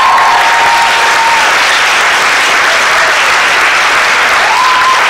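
Audience applauding loudly and steadily at the end of a song, with a few cheering voices rising above the clapping at the start and again near the end.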